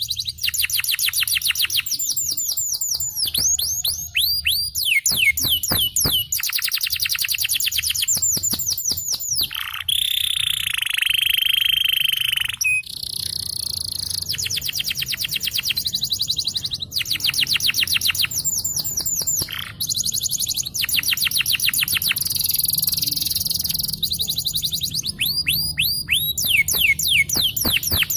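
Yellow canary singing a long, unbroken rolling song. It runs as fast trills of repeated down-sweeping notes, switching to a new phrase every few seconds, with one held note lasting nearly three seconds about ten seconds in.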